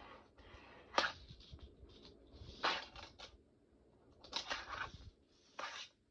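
Fingerboard rolling and scraping on plastic skatepark ramps in a few short bursts, with a sharp click of the board striking the ramp about a second in.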